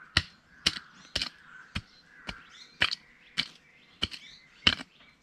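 Keser (short-handled adze-hoe) striking soil in quick, regular strokes, about nine sharp chops at roughly two a second, as soil is drawn up around tomato plants. Faint bird calls between the strokes.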